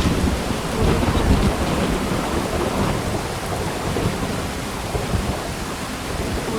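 Thunder rumbling over steady light rain: the rumble is loudest in about the first second and a half, then slowly fades while the rain hiss continues.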